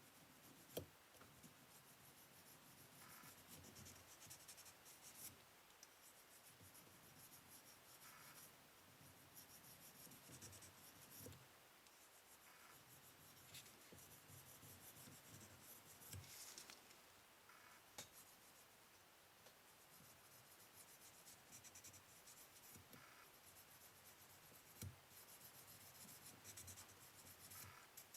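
Faint scratching and rubbing of wet, water-resistant sandpaper worked over a fork to smooth its surface, with a few light clicks.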